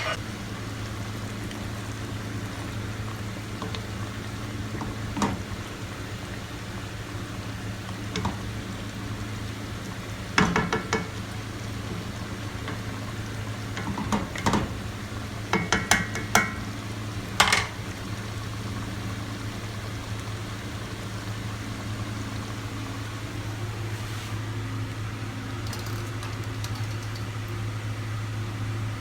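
Cookware and utensils clinking and clattering a few times, mostly between about ten and eighteen seconds in, some with a short metallic ring, over a steady low hum.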